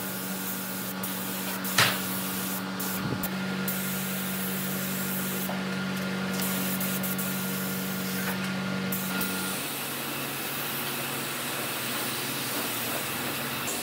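Compressed-air spray gun hissing steadily as it sprays finish onto wood, over a steady motor hum that drops to a lower pitch about two-thirds of the way through. A sharp click about two seconds in.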